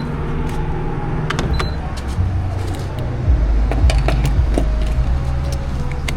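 A car's engine running, with a low rumble that grows stronger about three seconds in, and scattered sharp clicks and knocks over it.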